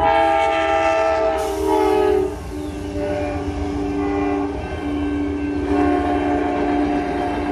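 Amtrak diesel locomotive's horn sounding a chord as it passes at speed, the chord dropping in pitch about two seconds in as the locomotive goes by. The horn then carries on at the lower pitch over the rumble of the passing passenger cars.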